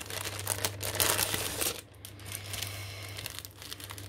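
Wrapping and packaging crinkling and rustling as it is unwrapped by hand, busiest in the first two seconds, then softer.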